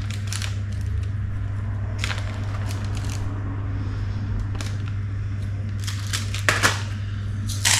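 Light kitchen handling noises, a few scattered rustles and knocks as food is put into a bowl, over a steady low hum.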